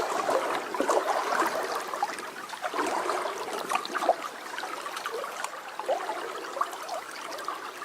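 Trout stream running, a steady babbling trickle of water with small irregular gurgles.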